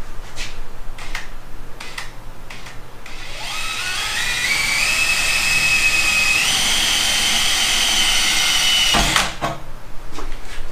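DeWalt XR cordless drill boring a 1/8-inch pilot hole into a car's trunk-lid body panel. After a few brief clicks, the motor's whine rises in pitch in steps as it speeds up, holds high, then cuts off suddenly about nine seconds in.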